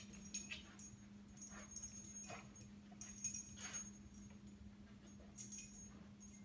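Dog's collar tags jingling in a few short bursts as the dog shifts and noses about on its bed, over a steady low hum.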